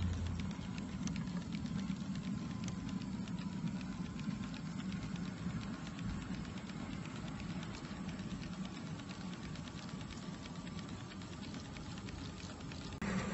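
G-scale Bachmann two-truck Shay model locomotive and its logging cars running along garden railway track, heard from a car riding on the train: a steady low rumble of wheels and gearing with fast, light clicking and a faint steady whine.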